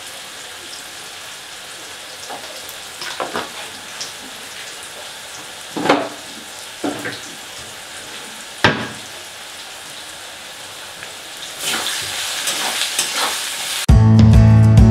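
Sliced onions and dried red chilli powder sizzling steadily in hot oil in a kadai, with a few sharp knocks along the way. Near the end the sizzling grows louder in strokes as a spatula stirs the pan. Acoustic guitar music cuts in just before the end.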